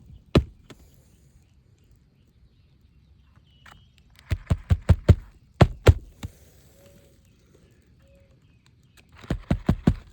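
Hammer driving roofing nails to fasten a replacement asphalt shingle: bursts of quick, sharp blows with pauses of a few seconds between.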